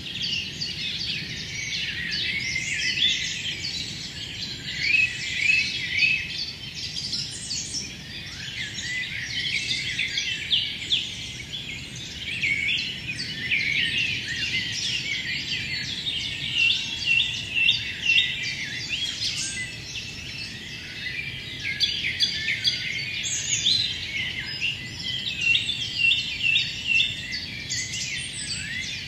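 Dawn-chorus-like dense birdsong of many birds singing at once: overlapping chirps, trills and whistled phrases, with rapid repeated notes in places, over a faint low background hum.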